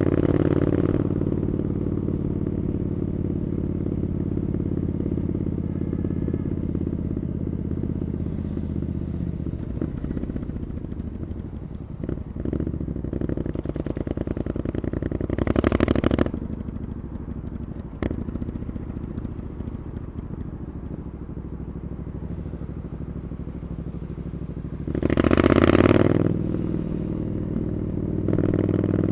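Triumph Scrambler 900's parallel-twin engine through an Arrow exhaust, running steadily while riding, with louder bursts of throttle about halfway through and again near the end. A single sharp click about two-thirds of the way in.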